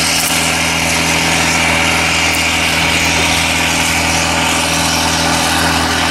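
Self-propelled crop sprayer's engine running steadily as it drives along with its stream bars applying nitrogen, under a steady hiss.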